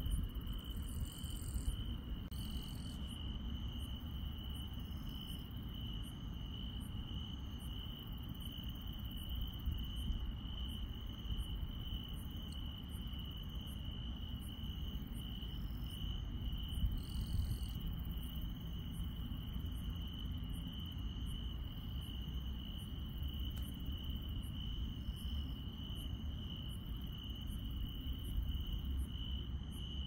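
Grass insects chirping at night in a steady, unbroken high trill on one pitch, with a fainter high ticking about once a second from another insect. A low rumble runs underneath.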